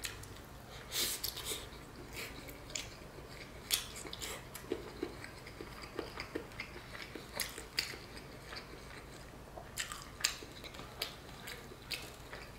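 Close chewing and mouth sounds of a person eating spiced rice and meat by hand, with scattered soft wet smacks and clicks between quieter stretches.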